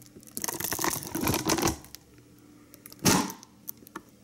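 Banana being peeled by hand: a crackling tear of the peel lasting over a second, then a second, shorter tear about three seconds in.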